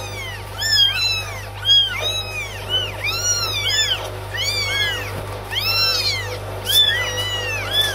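Newborn Burmese kittens mewing: short, high-pitched arching cries, about two a second, from more than one kitten at once.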